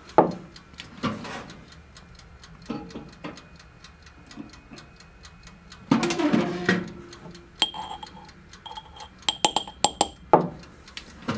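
Steel needle-nose pliers and a jig head clinking and tapping against a glass jar of powder coat while the jig is dipped in the powder. About six seconds in the jar clunks down on a wooden bench. Near the end comes a quick run of light clinks.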